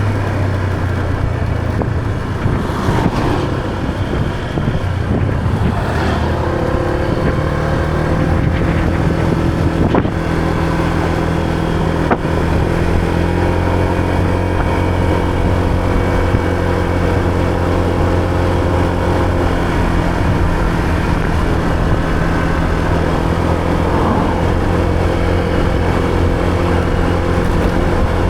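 Motor scooter engine running under way. Its note shifts up and down in the first few seconds, then holds steady.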